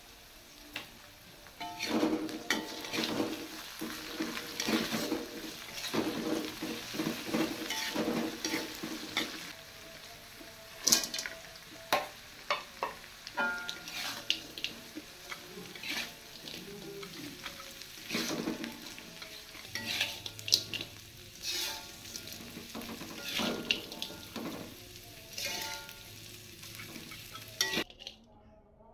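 A metal spatula stirs and scrapes a stir-fry of chilies, shallots and fresh anchovies in a metal wok while the food sizzles in the oil. The scraping strokes come in irregular runs, with a few sharp clanks against the wok, and the sound cuts off suddenly near the end.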